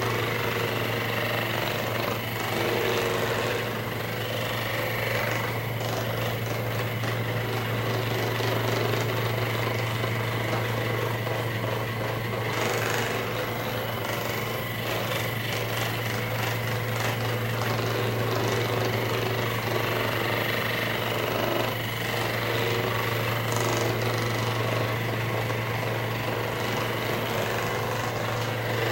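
Handheld percussive massage gun running steadily with a continuous buzzing hum.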